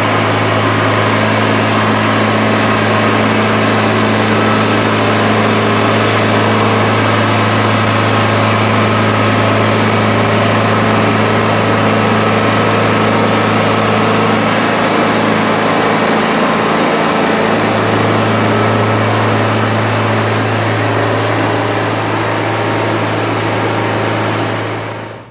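Wood-Mizer LT50 portable band sawmill running steadily and loudly, its engine and band blade sawing lengthwise through a pine log, with a strong continuous low hum.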